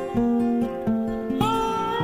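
Instrumental music led by plucked acoustic guitar, a run of notes changing every fraction of a second.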